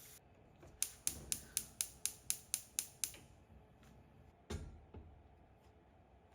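A small mechanism clicking about ten times in quick succession, roughly four sharp clicks a second, followed about a second later by a single dull thump.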